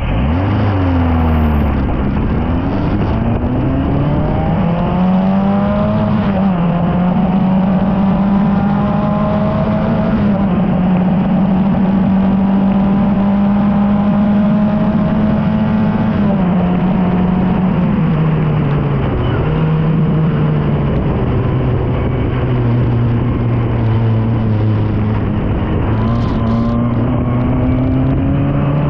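Formula Ford single-seater's engine heard onboard, launching from the start line and accelerating hard through the gears, the pitch climbing and dropping back at each upshift. It then holds high revs down the straight, steps down twice past the middle as the car slows and changes down, and climbs again near the end.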